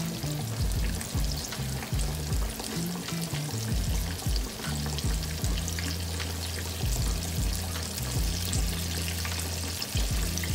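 Cornmeal-and-flour-coated whiting fillets deep-frying in hot oil in a cast iron pan: a steady, dense sizzle with constant small crackles from the vigorously bubbling oil.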